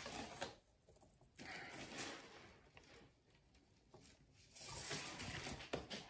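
Faint rustling and scraping of thin insulated wires being laid by hand around a wire bundle while wrapping the last layer of a concentric-twisted wiring harness, in three bursts of a second or so.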